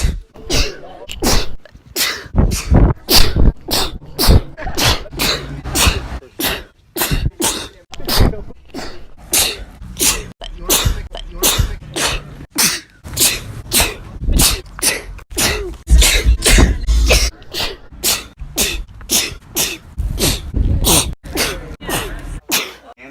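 A long run of human sneezes, one right after another at about two a second, each a short, sharp burst.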